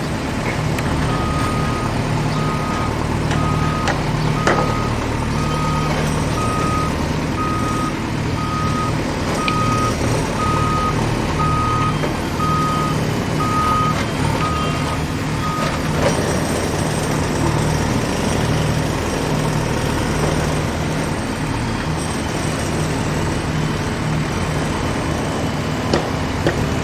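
Heavy construction vehicle's engine running steadily, its reversing alarm beeping a little over once a second for about fifteen seconds before it stops, with scattered clanks and knocks of work on a construction site.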